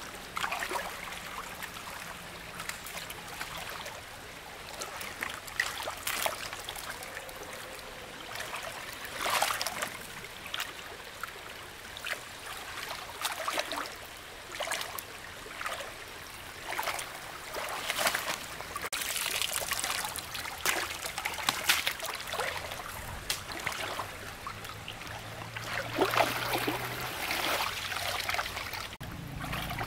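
Water trickling and splashing, with irregular louder splashes every second or two.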